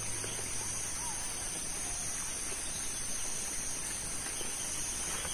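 Steady high-pitched drone of forest insects: two constant shrill tones held without a break.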